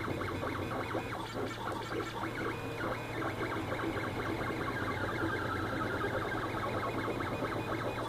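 A 3D printer printing a small ring-shaped part. Its stepper motors buzz and whine in quick, changing pitches as the print head moves back and forth, over a steady low hum.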